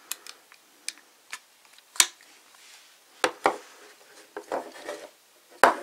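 Hard plastic toy parts being handled: scattered clicks and taps, with louder knocks about two seconds in and again near the end.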